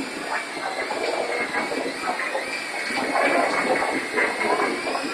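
Toy radio-controlled helicopter's small electric motors whining steadily at a high, slightly wavering pitch, over the hubbub of a crowded shopping mall.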